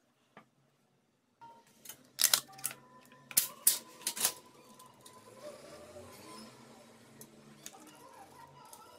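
A handful of sharp plastic clicks and knocks, about two to four seconds in, as a small handmade model truck on toy plastic wheels is handled and turned on a table. After that a faint steady hum.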